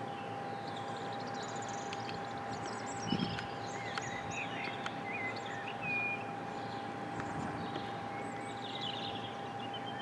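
Small songbirds chirping, short high chirps and calls scattered throughout, over a steady outdoor hiss and a constant thin tone.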